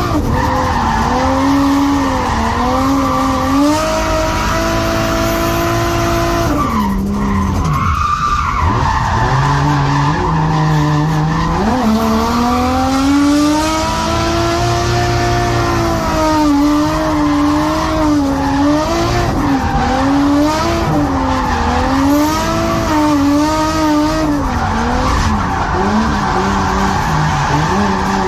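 Nissan Skyline R32's RB20DET turbocharged straight-six screaming at high revs while drifting, the throttle worked up and down constantly, with tyre squeal under it. The revs fall away about six seconds in and build again from about twelve seconds.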